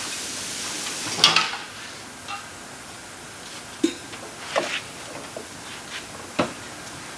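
Clanks and knocks of metal equipment being handled as an AC vacuum pump and gauge hoses are set in place, with a hiss that ends about a second in. The loudest clatter comes just after the hiss, followed by a few scattered knocks.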